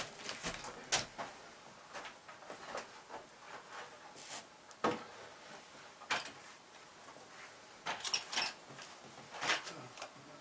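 Scattered light knocks, clicks and scrapes of hand work with wood and tools, irregular and none of them loud, with a quick cluster of knocks about eight seconds in.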